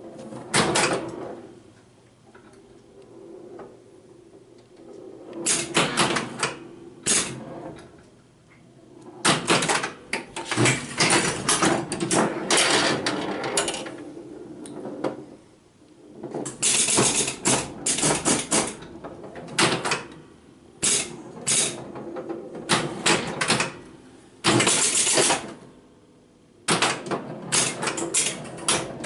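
Gottlieb Domino electromechanical pinball machine in play: bunches of rapid sharp clacks from flippers, bumpers, targets and score mechanisms, with quieter spells between them over a steady low hum.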